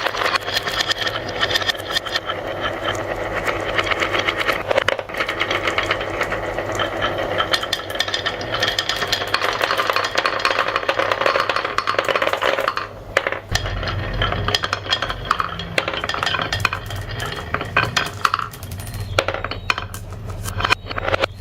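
Many marbles rolling and clacking against each other and a marble run track in a dense, continuous rattle. A low steady hum joins about two-thirds of the way in.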